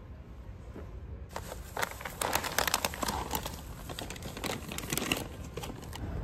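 Packaging being crinkled and handled: a dense run of sharp crackles that starts about a second in and stops about a second before the end.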